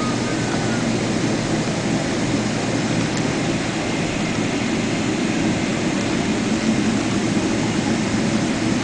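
Steady jet engine noise of a Boeing 777-300 airliner, heard from inside the passenger cabin, growing slightly louder near the end.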